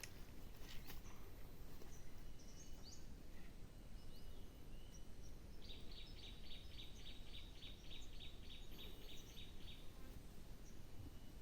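Outdoor ambience with a steady low background hiss. A bird gives a few short, high chirps, then from about halfway a fast run of evenly spaced high chirps, about four a second, lasting some four seconds.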